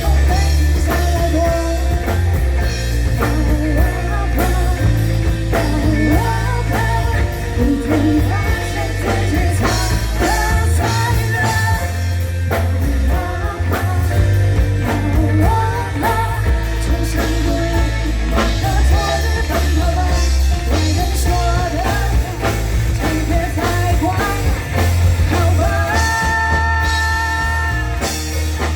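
Rock music with a singing voice over a heavy bass line, ending on a long held note near the end.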